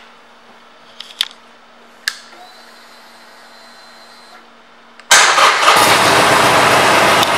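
Ignition clicks on a 2018 Harley-Davidson Sportster Forty-Eight, with a faint high whine for about two seconds after, then about five seconds in its air-cooled 1200 cc Evolution V-twin starts on the electric starter, catches at once and settles into a steady idle.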